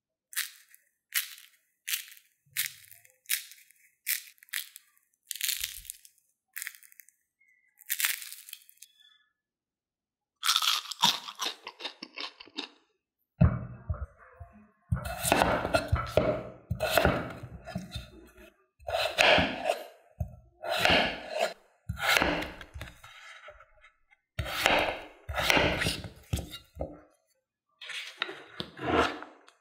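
Crisp fried potato cheese sticks crunching and cracking, sharp snaps about once a second. From about halfway, a knife cuts peeled raw potatoes into chunks on a wooden cutting board, each stroke ending in a knock on the board.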